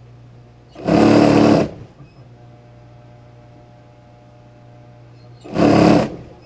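Juki industrial sewing machine stitching in two short runs, about a second in and again near the end, with a steady low hum between them.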